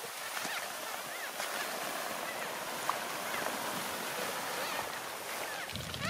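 Plastic sheet loaded with rice sheaves being dragged over dry rice stubble, a steady rustling scrape, with a few faint high chirps over it.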